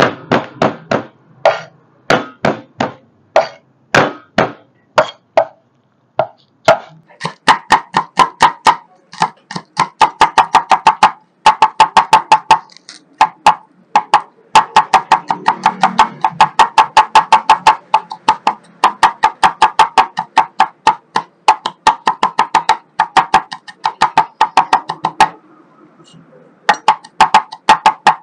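Steel cleaver mincing garlic on a wooden cutting board: sharp knocks of the blade on the board, spaced single chops at first, then fast runs of several strikes a second with a couple of short pauses, each knock carrying a brief metallic ring.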